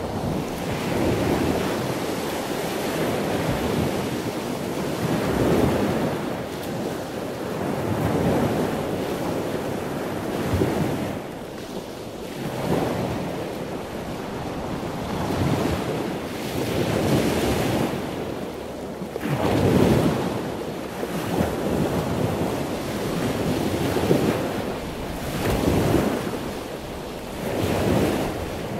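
Ocean surf: waves breaking and washing in, the rush swelling and fading every few seconds.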